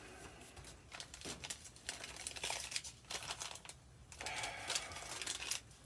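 Paper tea bag packets crinkling and rustling as they are picked up by hand and packed into their box, in an irregular string of light rustles and taps.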